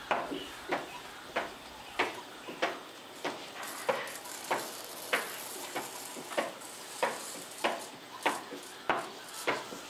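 Sharp knocks at an even pace, a little under two a second, each with a short ring after it, over a faint hiss.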